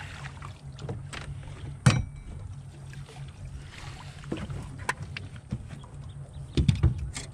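Knocks and clatter of a metal-handled landing net and gear against an aluminium jon boat while a fish is netted, the loudest knock about two seconds in and a cluster of knocks near the end, over a steady low hum.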